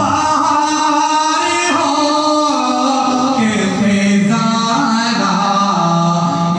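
A man's voice chanting unaccompanied in Islamic devotional recitation, amplified through a microphone, in long held notes that slide from pitch to pitch and settle lower about halfway through.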